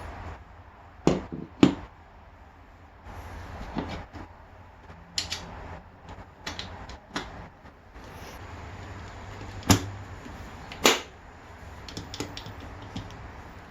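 Hand work on a motorcycle seat: a scattered series of knocks and clicks, four louder clunks among them, over a steady low hum.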